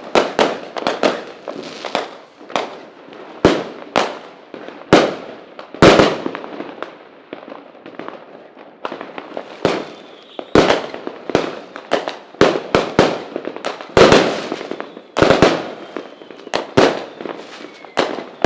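Fireworks going off: a rapid, irregular series of loud bangs, several a second at the busiest moments, each trailing off in a short echoing tail.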